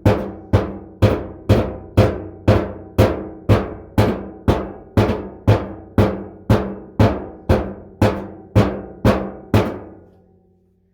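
A rock beating a tin bathtub, about two strikes a second, each leaving a metallic ring, to dent the tin down around the drain hole; the strikes stop near the end.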